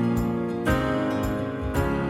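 Background music: a gentle acoustic guitar instrumental, with chord changes about two-thirds of a second in and again near the end.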